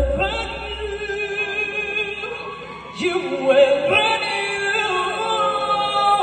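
A woman singing into a microphone through a stage PA, in two long held phrases, the second starting about three seconds in. Only faint accompaniment sits under the voice.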